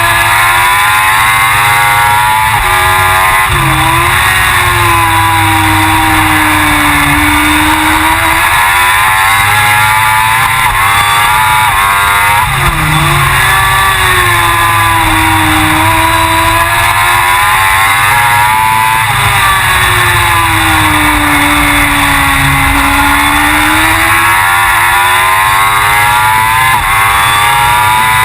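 Suzuki GSX-R1000 superbike's inline-four engine at racing speed, loud throughout, its pitch climbing and falling over and over as the rider works through the gears, with a few sharp drops in revs on braking into corners.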